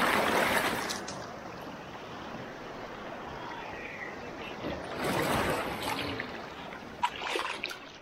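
Small sea waves washing in over a person sitting in shallow surf, with splashing and sloshing around the body. Three surges come in: one right at the start, a bigger one about five seconds in, and a shorter one near the end, with lighter lapping between.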